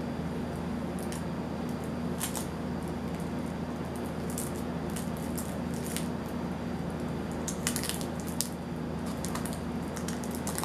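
Sealed plastic bag of Yu-Gi-Oh cards crinkling and crackling in scattered short spells as it is worked at, a tough bag to tear open, over a steady low hum.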